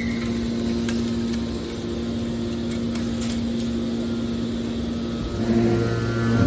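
Hydraulic metal baler's motor and pump running with a steady hum. About five and a half seconds in, a deeper hum joins and the sound gets louder, as the machine takes on load.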